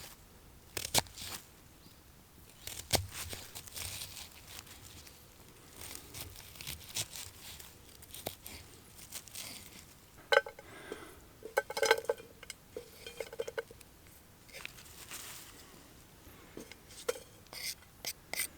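An onion being peeled and cut with a kitchen knife: scattered sharp knocks at an irregular pace, busiest about two-thirds of the way through.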